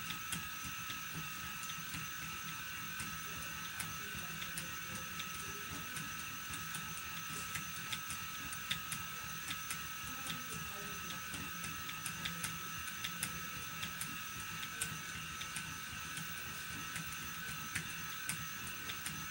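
Phoenix electric motor spinner running steadily with a high, even whine from its motor and whirling flyer as short-staple cotton is spun, with light irregular ticks throughout.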